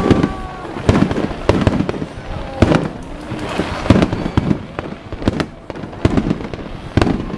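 Aerial fireworks bursting in quick succession: about a dozen sharp bangs at uneven intervals, sometimes two within a second.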